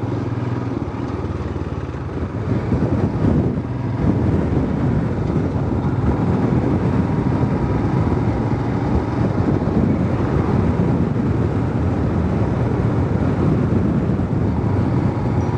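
Road vehicle on the move, engine and tyre noise mixed with a steady low wind rumble on the microphone.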